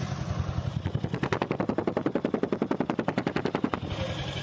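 Toyota Prius hybrid's petrol engine running rough, with a rapid, even clatter of many beats a second for about three seconds over the steady running, then easing back. This is the misfiring and engine noise that the mechanic traces to jammed tappets with no valve clearance.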